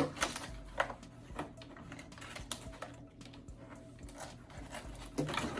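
Irregular light clicks and taps of hard plastic being handled as a toy robot is unpacked from its box, a few of them sharper near the start.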